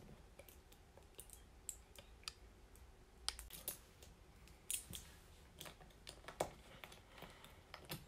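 Small plastic LEGO hinge and clip pieces being picked up and snapped together: faint, irregular clicks.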